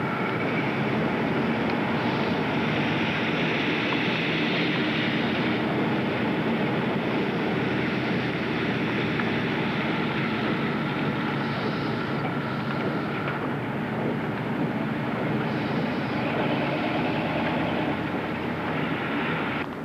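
Steady motor-vehicle running noise, a continuous rumble with hiss over it that holds level throughout and drops off abruptly near the end.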